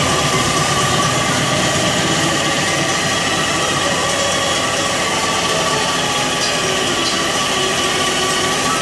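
Air spray gun spraying finish onto a carved wooden chair: a steady hiss of compressed air over a continuous mechanical drone.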